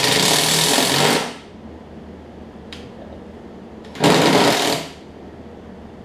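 Cordless impact driver with a 9/16 socket hammering a nut down on the mower deck's pulley bolt, in two bursts: the first about a second long at the start, the second just under a second about four seconds in.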